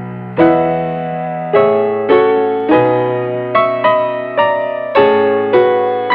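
Slow, soft solo piano music: notes and chords struck about every half second to a second, each ringing and fading before the next.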